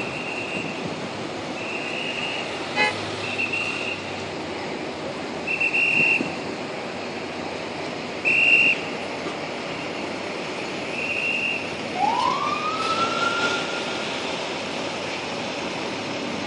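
Traffic noise from a queue of idling cars, cut by short high electronic beeps every one to three seconds. About twelve seconds in comes a single rising siren whoop from a police car.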